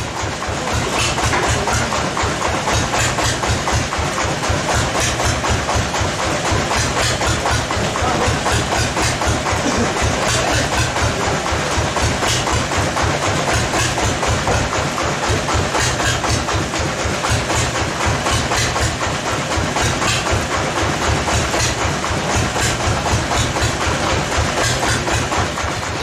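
Band sawmill machinery running steadily, a loud machine noise with a fast, regular pulsing beat.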